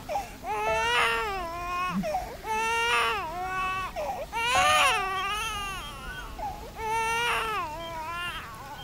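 A baby crying: a string of high, wavering wails, one after another with short breaths between.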